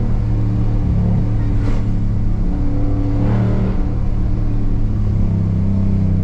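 Ford Raptor pickup's engine running steadily while driving, a low drone heard from inside the cabin; its note shifts slightly lower about five seconds in. Two brief faint swishes come about one and a half seconds apart.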